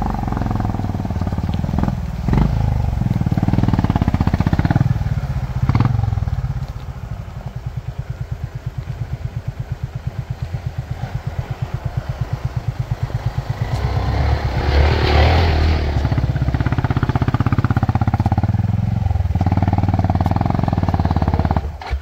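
Motorcycle engine under way off-road: pulling hard at first, then chugging at low revs with an even pulse, then revving up again with a rush of noise about fifteen seconds in. The sound cuts off suddenly near the end.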